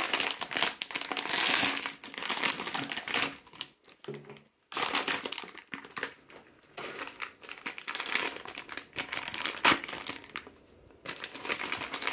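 Foil blind-box bag and thin clear plastic wrapping crinkling in the hands as a toy figurine is unwrapped. It comes in bursts of crackling with short pauses.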